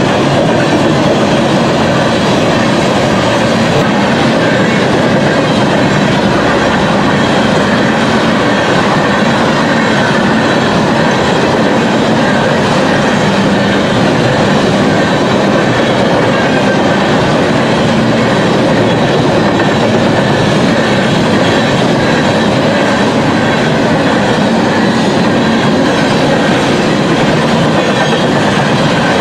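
Coal train cars rolling past close by: a loud, steady rumble and rattle of steel wheels on the rails.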